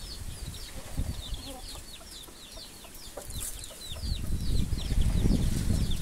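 Chickens in a coop: a steady run of short, high, falling peeps and chirps, with low rumbling noise building from about four seconds in.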